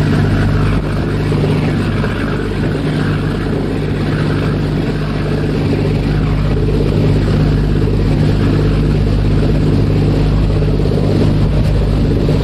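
Ferry engines droning steadily with a low hum, under a constant rushing noise.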